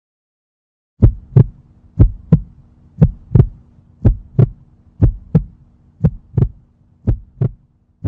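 Heartbeat sound effect: paired lub-dub thumps about once a second over a faint low hum, starting about a second in.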